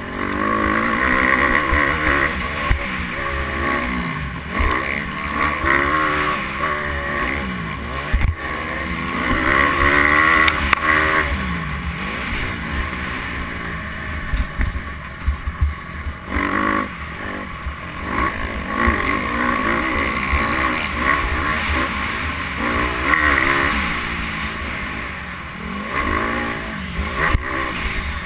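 Dirt bike engine revving up and down through the gears as it is ridden hard on a dirt track, its pitch climbing and falling again and again and dropping off briefly past the middle. Wind buffets the microphone throughout.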